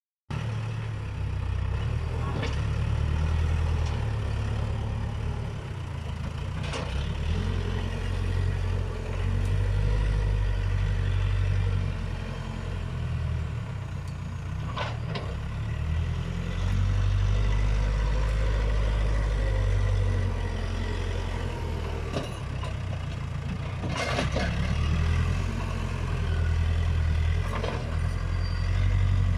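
Case 580 Super K backhoe loader's diesel engine running steadily, its level swelling and easing every few seconds, with several sharp metallic knocks over the top.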